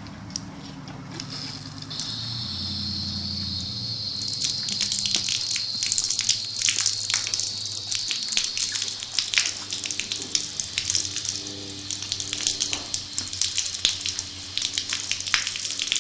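Water spraying from a pistol-grip garden-hose nozzle, hissing steadily and splattering irregularly against a horse's lips and muzzle as she mouths and plays with the spray. The splattering gets busier about four seconds in.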